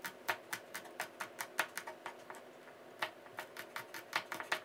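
Chef's knife slicing chillies on a bamboo cutting board: a quick, even run of blade taps, several a second, pausing briefly about two seconds in before resuming.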